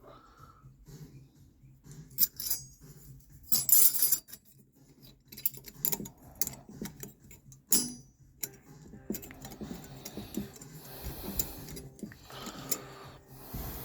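Steel brake hardware being handled: new caliper-kit spring clips clicking into the grooves of the caliper bracket and brake parts clinking against each other. A string of irregular sharp metallic clicks and clinks, the loudest cluster about four seconds in.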